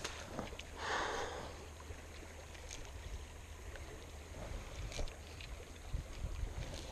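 Shallow creek running over a riffle, under a steady low rumble of wind on the microphone, with a short louder rush about a second in. A few light clicks and rustles come from handling the fly line.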